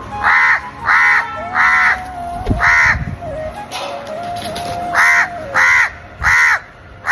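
A bird giving a series of short, repeated calls, about four in quick succession, then a pause, then four more.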